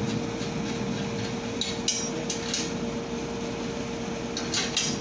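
Metal clinks and taps from a slotted steel strip being handled and fitted: a few sharp knocks about two seconds in and a quick cluster near the end, over a steady hum.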